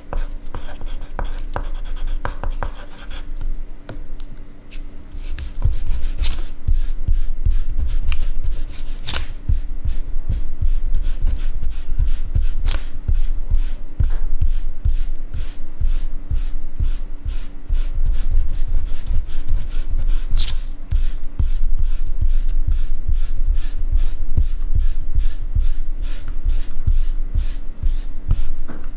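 Pencil writing on paper close to the microphone: rapid, continuous scratching strokes, briefly quieter a few seconds in. A faint steady hum runs underneath.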